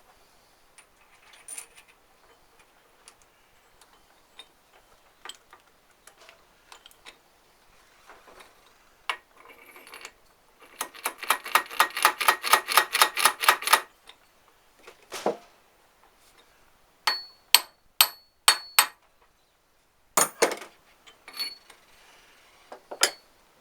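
Hand tools working on the steel parts of a Citroën 2CV driveshaft output hub. About halfway through comes a rapid run of ringing metallic taps lasting a few seconds, followed by several sharp metal clinks and a knock, with small scattered clicks around them.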